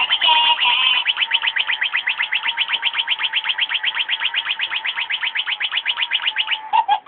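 Robotic toy mouse's electronic sound chip playing synthesized chirps: a short warbling phrase, then a fast run of chirps about nine a second over a steady beep, cutting off abruptly at the end.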